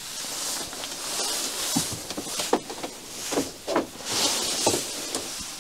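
Rustling with several light knocks and clicks, like someone moving about and handling things in a small room.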